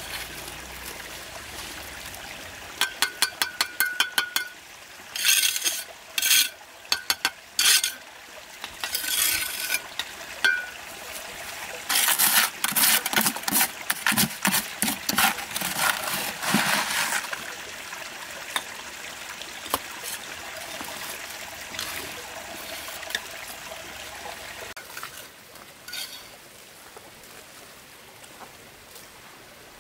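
Bricklaying by hand: a trowel clinking and scraping against the metal mortar bucket and bricks as wet mortar is scooped and spread, a run of sharp clinks with a short metallic ring, then a longer stretch of scraping and clatter in the middle. A stream runs underneath throughout.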